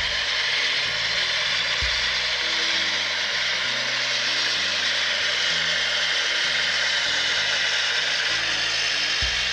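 HO scale diesel locomotives running on TCS sound decoders: a steady whirring hiss from the models' motors and wheels over a low, shifting diesel engine drone, with a couple of brief low thumps.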